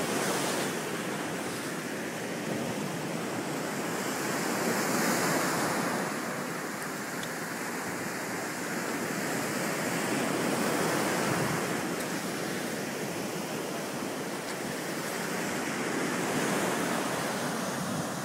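Surf breaking on a sandy beach in stormy weather: a steady rushing wash that swells and eases about every five or six seconds, with wind on the microphone.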